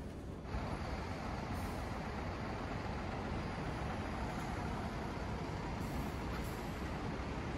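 Diesel highway coaches running at a bus terminal: a steady low engine rumble under a wash of traffic noise, with two faint, brief high hisses.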